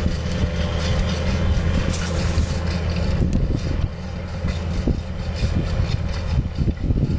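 An engine running at a steady low hum, with irregular low rumbling from wind on the microphone in the second half.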